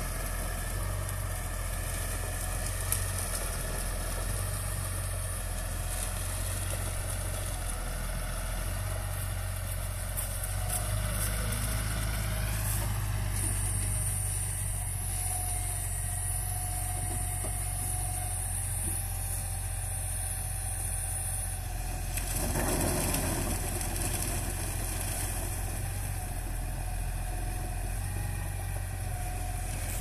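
Case Puma tractor engine and the Grimme SE 150/170-60 two-row potato harvester it drives, running steadily with a deep hum as the harvester's bunker unloads. About twelve seconds in the machinery's pitch rises, and about twenty-three seconds in there is a brief louder rumble.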